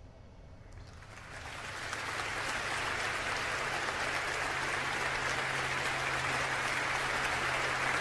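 Concert audience applauding, swelling in about a second in and then holding steady.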